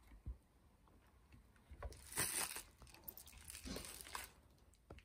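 Plastic packaging crinkling and rustling in two short bursts, about two seconds in and again near four seconds, with a soft knock at the start: handling noise as the camera on its grip is picked up among the wrapping.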